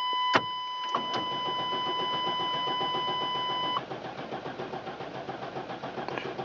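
A GMC Safari van's starter cranking the engine in quick even pulses without it catching, after a click of the key; the owner suspects an ignition fault, a wet distributor cap. A steady electronic warning chime tone sounds over the first part and stops partway through.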